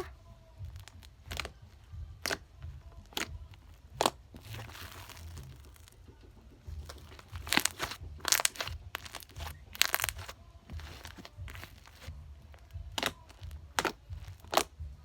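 Homemade cloud slime being squished and stretched by hand, giving scattered sharp pops and clicks, bunched closer together about eight and ten seconds in.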